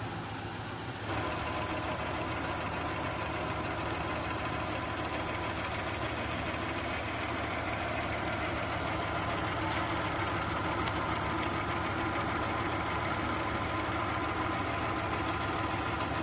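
Hardinge HLV-H toolroom lathe running, a steady machine hum and whine with a few fixed tones, stepping up in loudness about a second in.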